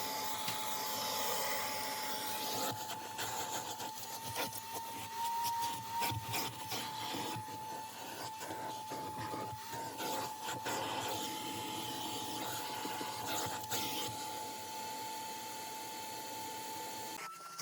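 Vacuum motor running with a steady high whine while the nozzle scrapes and rubs over car carpet and upholstery, with many small scratches and knocks. Near the end the whine jumps to a higher pitch.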